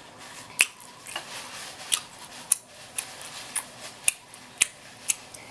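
Open-mouth chewing close to the microphone: sharp, wet mouth smacks about twice a second.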